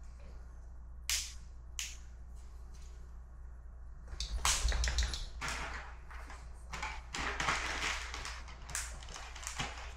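Objects being handled on a table: two sharp clicks, then from about four seconds in a busy run of rustling and clattering that keeps going to near the end.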